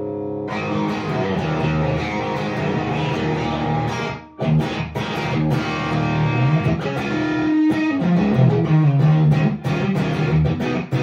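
Electric guitar with single-coil pickups played through a Fat Monday overdrive and a Wolf Cub volume boost pedal: a ringing chord fades, then a driven riff of picked notes and chords starts about half a second in, with a brief stop about four seconds in before the playing resumes.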